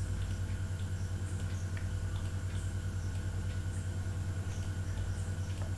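Steady low hum of the recording setup with a fast, even pulse to it, and a few faint clicks over it.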